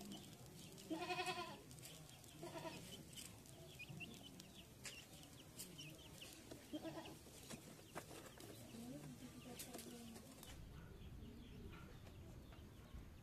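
A goat bleating: one quavering call about a second in, then two fainter bleats, over faint high chirps and scattered clicks.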